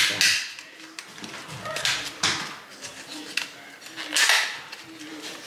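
Clear plastic clamshell container being handled and pried open, the plastic crackling and clicking in three short bursts.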